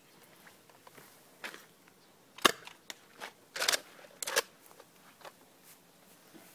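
Nerf foam-dart blaster snapping and clacking: one sharp snap about two and a half seconds in, then a rattling cluster of clacks about a second later and another shortly after.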